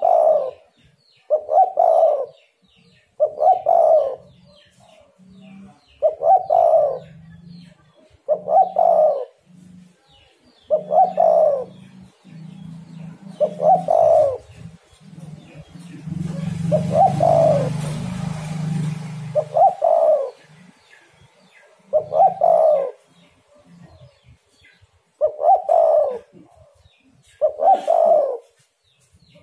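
Spotted dove cooing, repeating its short phrase about a dozen times, one every two to three seconds. A low rumble with hiss swells and fades about halfway through.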